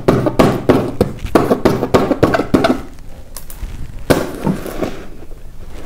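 A pen tip jabbed repeatedly through a paper picture on a hard backing, punching and tearing holes in it: quick sharp taps about four a second for the first three seconds, then a few scattered ones, with one harder jab a little after four seconds.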